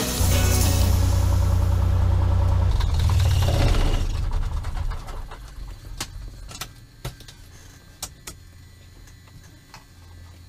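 A Cessna 182S's Lycoming IO-540 six-cylinder engine running at idle, heard from inside the cabin. It is shut down about four seconds in and winds down to a stop within a second or so. A few sharp clicks follow.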